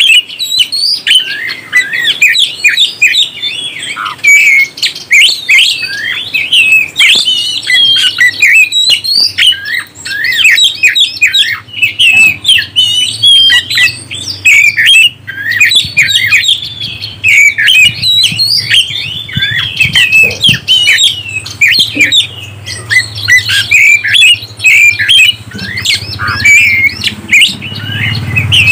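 Oriental magpie-robin (kacer) singing a fast, unbroken song of short notes that jump quickly up and down in pitch. A low hum comes in underneath about halfway through and grows toward the end.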